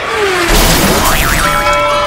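A loud crash about half a second in that lasts about a second, as the toy monster truck race track's trophy cup is hit and the track drops, over background music that settles into steady held notes near the end.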